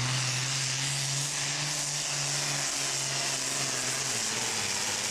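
John Deere super farm pulling tractor's turbocharged diesel engine running hard under load while pulling the sled, with a strong hiss over the engine note. The engine note drops about four seconds in as the throttle comes off.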